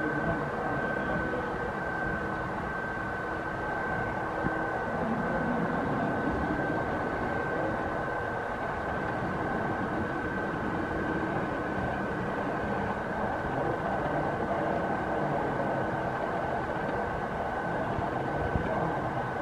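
Model Union Pacific diesel locomotives pulling a string of freight cars along the track: a steady rolling rumble of wheels and motors with a constant high-pitched tone.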